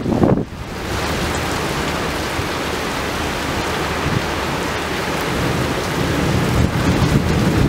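Heavy rain pouring steadily in a thunderstorm, after wind buffets the microphone for the first half-second. A low rumble of thunder swells near the end.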